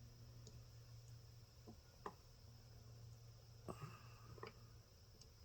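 Near silence with a few faint clicks of small parts being handled, one about two seconds in and a few more near the end.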